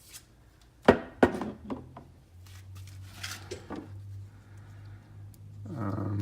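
Hard handling knocks of the plumbing multi-tool and the freshly cut PVC pipe: two sharp knocks about a second in, followed by a few lighter clicks. A low steady hum comes in after about two seconds.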